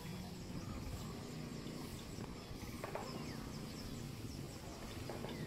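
Outdoor ambience: a steady low rumble with a few faint, short chirps from birds or insects.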